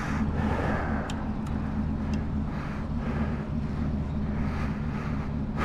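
Motorcycle engine running steadily at an even, unchanging pitch.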